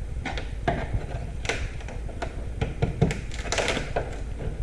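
Irregular clicks, taps and knocks as a bondo-covered rear quarter panel piece is worked and pried loose from a car body.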